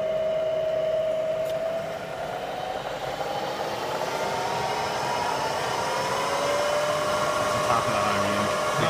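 Bridgeport-by-Hardinge Series I knee mill spindle and variable-speed belt drive running with a steady whine; from about two seconds in the pitch rises as the speed handwheel is turned, and it settles at a higher, faster spindle speed.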